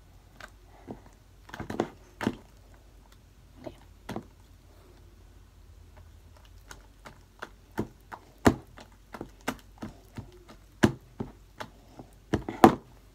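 Homemade slime being squeezed and stretched by hand, giving irregular sharp clicks and pops, several to a second in places, the loudest near the end.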